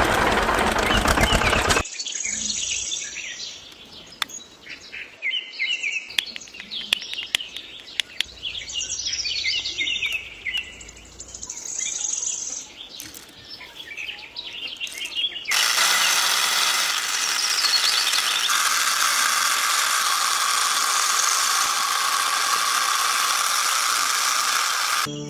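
A small motor running stops about two seconds in. Birds chirp with scattered small clicks for about fourteen seconds. Then a steady, loud whirring starts: the miniature tractor-drawn grinder milling wheat into flour.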